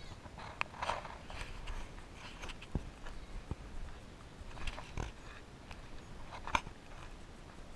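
Footsteps on a stony dirt trail: irregular crunches and clicks of boots on loose rock and gravel.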